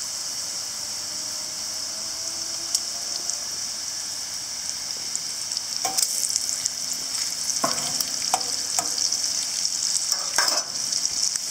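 Steady high sizzle of crinkle-cut fries deep-frying in oil in a cast iron skillet. About halfway through, bacon sizzles and crackles in a cast iron skillet, with a few sharp metal clicks as it is turned with a metal utensil.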